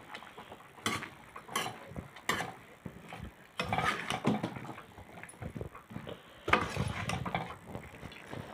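A perforated metal ladle stirring chopped carrots, potatoes and peas in a metal kadhai. There are a few sharp clinks of metal on metal in the first seconds, then longer scraping and shuffling strokes through the vegetables.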